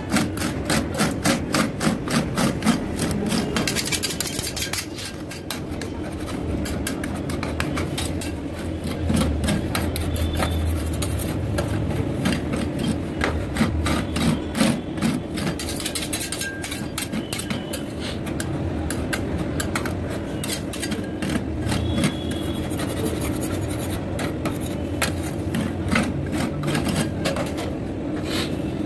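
Metal spatula scraping and tapping on a stainless steel cold plate as a rolled-ice-cream mix is chopped and spread thin: rapid scrapes and clicks, densest in the first few seconds, then in looser runs, over a steady low hum.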